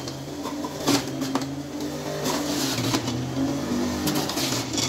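Panasonic electric juicer running with a steady motor hum as carrot and orange pieces are pressed down its feed chute, with a few short knocks from the pieces and the pusher.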